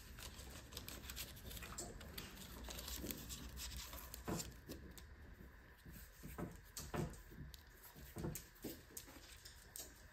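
Faint kitchen handling sounds: a few soft scattered taps and clicks over a low, steady hiss.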